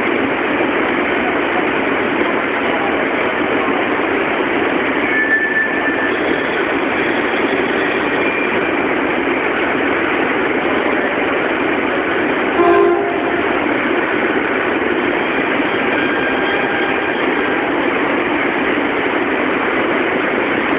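E3 series Komachi Shinkansen creeping slowly along the platform to couple with another train: a steady, even running noise of the train, with one short tone about thirteen seconds in.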